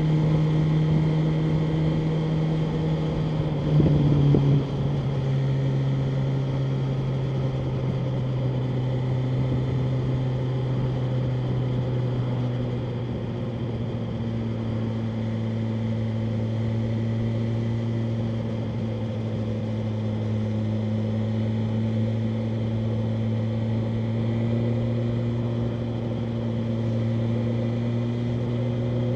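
BMW M1000R Competition's 999 cc inline-four running steadily while riding at a constant pace. About four seconds in there is a short louder burst and the engine note steps down as it shifts up a gear. It then settles into an even, lower cruising note.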